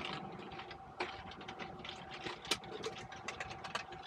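Irregular light clicks and rattles over a faint steady hum inside a semi-truck cab.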